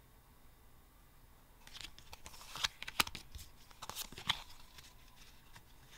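Yu-Gi-Oh! trading cards being handled: a few seconds of rustling, with several sharp snaps of card stock, as one card is put away and the next is taken from the stack.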